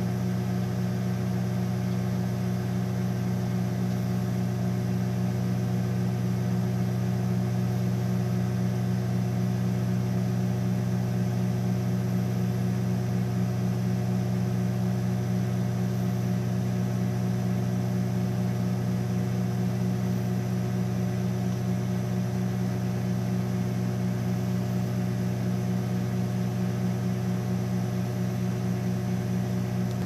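Hamilton Beach microwave oven running mid-cycle: a steady low hum that does not change.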